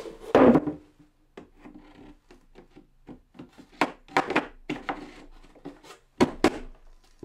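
Plywood wing being set down and pushed into place on a mitre saw station: wooden knocks and rubbing of board on board, with a loud knock just after the start and clusters of sharp knocks around the middle and about six seconds in.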